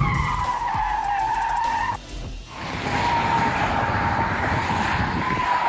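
Car tyres screeching in two long squeals. The first falls slightly in pitch and breaks off about two seconds in; the second starts about half a second later and holds steady.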